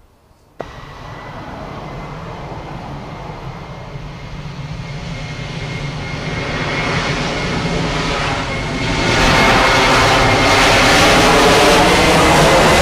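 Jet engines of an American Airlines Boeing 737 running at high power as the airliner rolls down the runway, a steady noise with a thin high whine. It starts abruptly and grows louder, with a further jump about nine seconds in.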